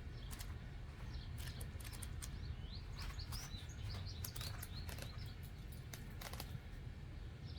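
Small birds chirping in short rising notes over a steady low rumble, with scattered sharp clicks and taps throughout.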